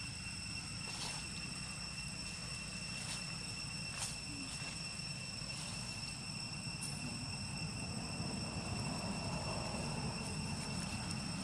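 Insects (crickets or cicadas) shrilling steadily in several high tones over a low outdoor rumble, with a few faint clicks.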